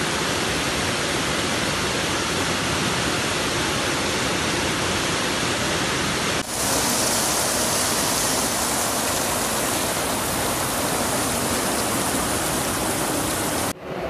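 Floodwater rushing through a city street, heard as a steady, loud rush of water mixed with heavy rain. About six and a half seconds in, it cuts abruptly to another recording of the torrent with more hiss in the highs, and near the end a brief dip marks another cut.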